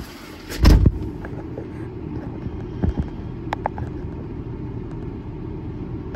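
Ford 6.7 L Power Stroke V8 turbo-diesel idling steadily, heard from inside the cab. A loud thump comes about half a second in, and a few light clicks follow around three to four seconds in.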